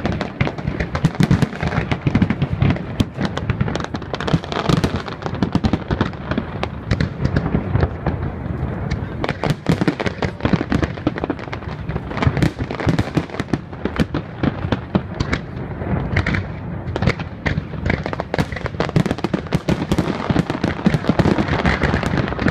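Fireworks display: a dense barrage of aerial shells bursting in rapid, overlapping bangs with crackling.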